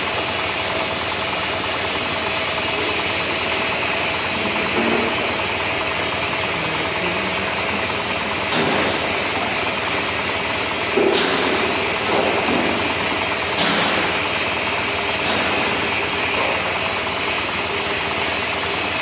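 CKPE-1200 air bubble film making machine running: a steady mechanical noise with a hiss over it, and three brief knocks in the middle.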